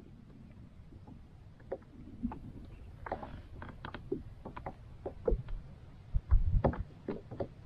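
Lake water lapping and slapping against a plastic kayak hull in small irregular splashes and knocks, over a low wind rumble on the microphone. A few heavier thumps come near the end.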